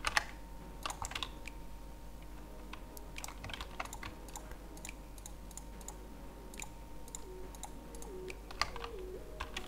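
Computer mouse and keyboard clicks, sharp and irregular, a few each second with short pauses, over a faint steady low hum.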